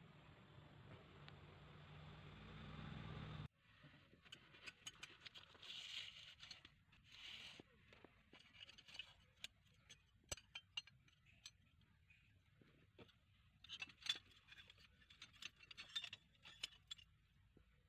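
A steady low hum cuts off suddenly about three and a half seconds in. After it, faint scattered clicks and short scrapes follow, the sound of metal knife blades knocking and rubbing against each other as a bundle of handmade knives is handled. The clicks cluster most densely near the end.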